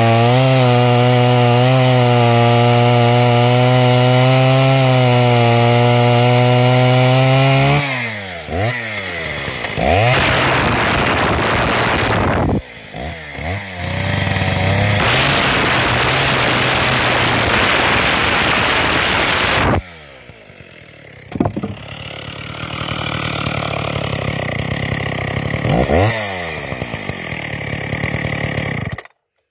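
Sachs-Dolmar 51 cc two-stroke chainsaw running hard in rock-hard red box eucalyptus. A steady high rev lasts about eight seconds, then the revs drop and the saw runs rougher and noisier through long stretches of cutting. Later it runs lighter with two throttle blips before the sound cuts off near the end.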